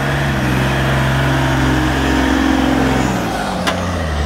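Trial truck's diesel engine held at high revs under load as the truck climbs out of a dirt pit. The revs drop about three seconds in. A single sharp click comes near the end.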